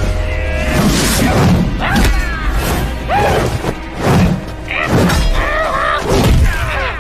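Film fight sound effects: a string of staff blows, thuds and crashes about once a second, with pitched cries between them, over background music.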